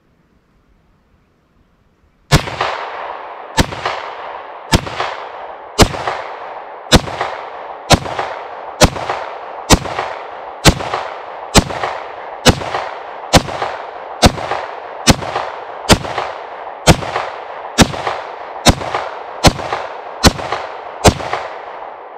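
Ruger-57 pistol in 5.7x28 firing about twenty shots at an even, steady pace of roughly one a second, each shot followed by a short echo.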